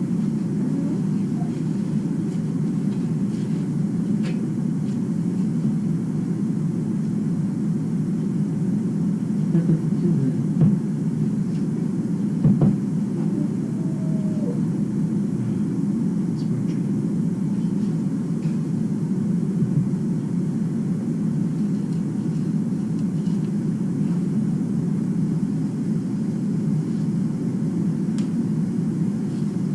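A steady low rumbling noise, with a few short knocks about ten and twelve seconds in.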